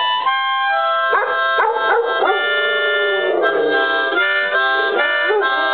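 A harmonica plays changing chords while a Shepherd-Chow mix dog howls along, her voice sliding up and down in pitch.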